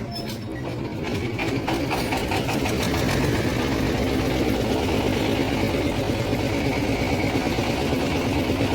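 A motor engine running at a steady, low pace. It grows louder over the first three seconds, then holds steady.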